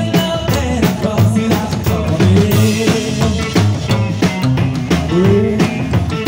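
Live rockabilly band playing: upright double bass plucked and slapped over a steady drum beat, with gliding melody lines over the top.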